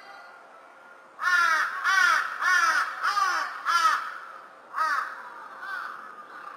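A crow cawing in a quick run of about six loud caws starting about a second in, followed by a few fainter caws.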